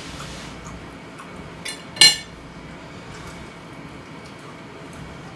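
Cutlery clinking once against a plate about two seconds in, with a lighter tap just before it; otherwise quiet room tone.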